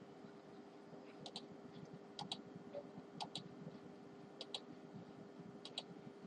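Small sharp clicks in pairs, five pairs about a second apart, over a faint steady hum.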